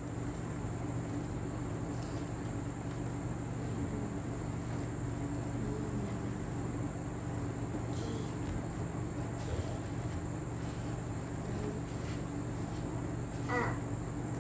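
Steady low hum with a constant high-pitched whine over it, and a brief faint sound about a second before the end.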